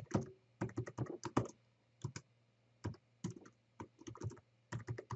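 Computer keyboard typing in short, irregular runs of keystrokes with brief pauses between them.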